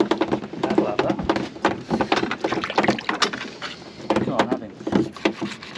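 A busy run of sharp knocks and taps, with people talking faintly underneath.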